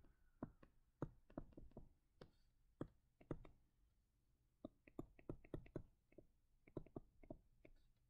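Faint, irregular clicks and taps of a stylus pen on a touchscreen while handwriting, with a pause of about a second near the middle.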